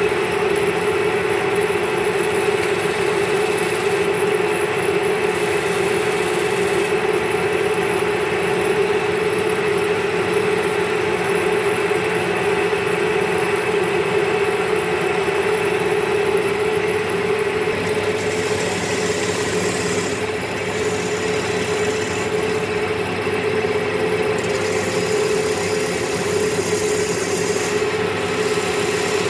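Wood lathe running steadily with a long wooden table-leg blank spinning, a continuous motor hum. In the last ten seconds a hiss comes and goes on top as a turning chisel cuts into the spinning wood.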